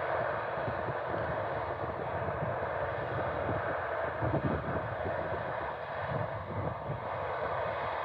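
Steady drone of a Double L 973 potato harvester and the truck running beside it as they dig, with a few louder low rumbles about four seconds in.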